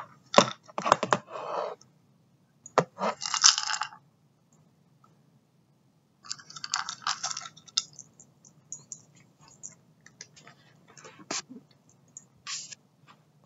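Cat pawing at a plastic fishbowl treat feeder, the food pieces inside rattling and clicking against the plastic. Three rattling bursts come in the first eight seconds, then scattered single clicks.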